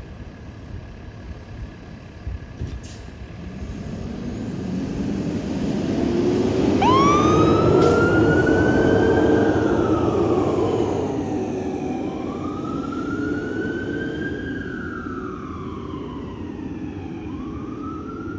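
Fire engine responding: its engine grows louder, peaks and then eases off. Its siren starts about seven seconds in with a quick rise, then wails in slow rises and falls about every five seconds.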